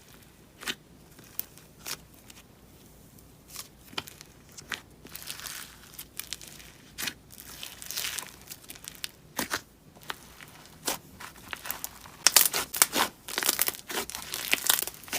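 Slime being squished and stretched by hand, giving sharp crackling pops and sticky tearing sounds. They come scattered at first and grow denser and louder near the end.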